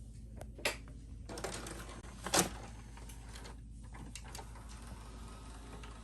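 Mitsubishi HS-U34 VHS videocassette recorder's tape mechanism clicking and clattering over a steady low hum, with two sharper clicks, one just over half a second in and one near two and a half seconds in.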